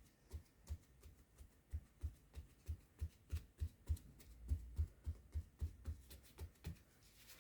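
A run of soft, dull taps on the work table, about three a second with a short pause after the first two, stopping shortly before the end.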